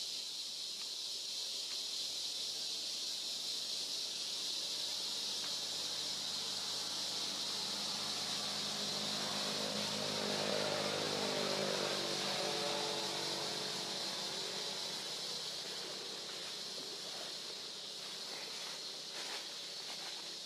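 A steady, high, shrill insect chorus runs throughout. A low engine hum swells in the middle and fades out again, as from a passing vehicle.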